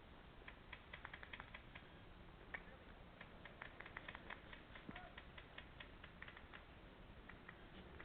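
Faint, irregular clicks and ticks, at times several a second, over a quiet background hiss.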